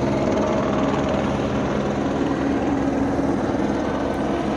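Rescue helicopter in flight: steady, loud rotor chop with engine noise.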